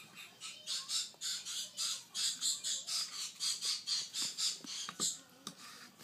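African grey parrot chick giving raspy food-begging calls in a fast, even series of about four or five a second, which stops about five seconds in.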